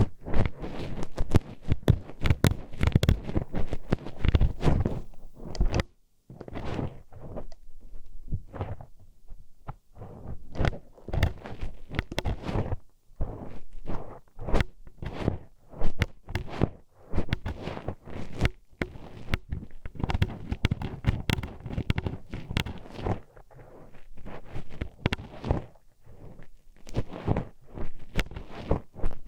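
A hairpin poked and scraped into an ear for ASMR, giving a dense, irregular run of close clacks, clicks and scratchy rubs with low thuds among them, broken by short pauses.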